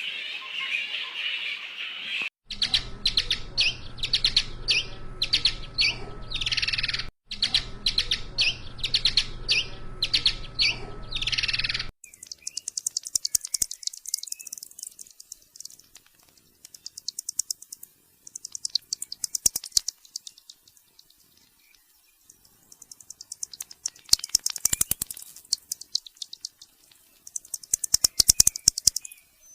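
Bat calls: a string of sharp, high squeaks for about ten seconds, then bursts of very rapid high clicking that come and go every few seconds.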